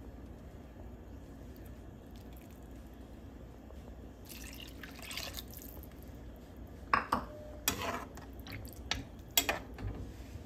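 Water being poured into a pan of sautéed vegetables, splashing for a second or so, then a metal spatula stirring the watery mixture with a few sharp knocks against the pan.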